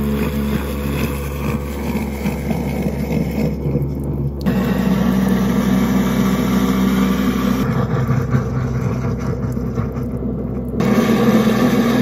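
Garbage disposal motor running with a steady hum while hot water runs into the drain, grinding a foaming disposal-cleaning tablet. The tone shifts abruptly about four and a half seconds in and again near the end.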